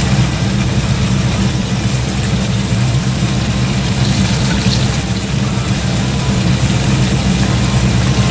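Steady low mechanical drone with an even rushing hiss, from the kitchen stove area where pots are cooking.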